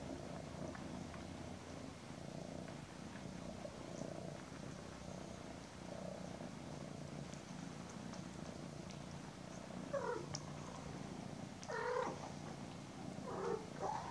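Cats purring steadily while kittens nurse on their mother, with three short cat calls about ten, twelve and thirteen seconds in.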